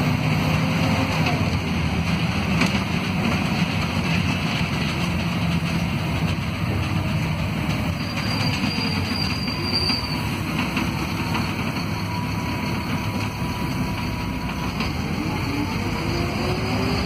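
Inside a city bus: steady engine and road rumble with the faint whine of a ZF Ecomat automatic gearbox. The whine changes pitch as the bus runs in second and third gear with the converter locked, then rises near the end as it pulls away in first gear on the torque converter.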